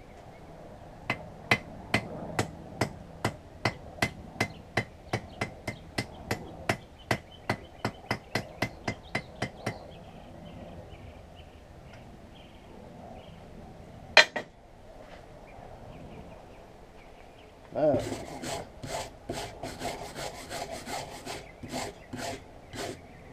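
Hand hammer flattening the hot file steel of a fire striker on an anvil: a steady run of about two dozen ringing blows, about three a second, then one louder single blow a few seconds later. Near the end come rough back-and-forth scrubbing strokes of a wire brush on the steel.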